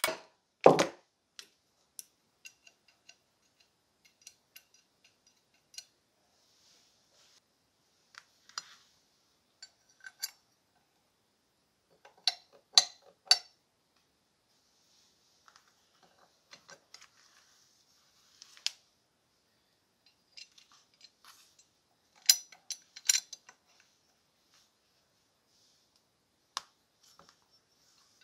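A single ball-peen hammer blow on a steel pivot pin about a second in. Then come scattered light metal clicks and clinks, in small clusters, as the cast-metal handles and jaw links of an antique H.K. Porter bolt cutter are handled and worked on their pivots.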